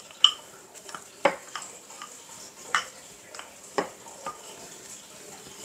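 Kitchen utensils and dishes clicking and knocking about half a dozen times, the sharpest a quarter of a second in and just over a second in, over a faint steady background hiss.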